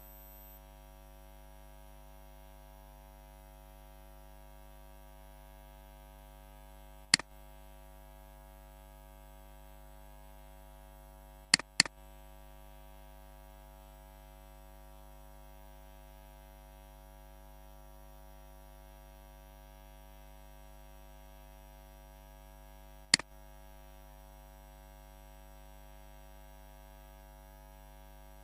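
Steady electrical mains hum with a buzz of many even overtones. Sharp computer mouse clicks break it: one about seven seconds in, a quick double click near twelve seconds, and another about twenty-three seconds in.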